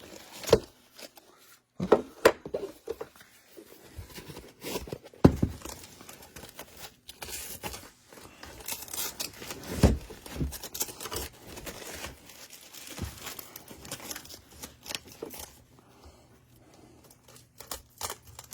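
Handling noise as a cordless drill kit is packed into its carrying case: irregular tearing and rustling of hook-and-loop (velcro) straps, with a few sharp knocks of tools against the case.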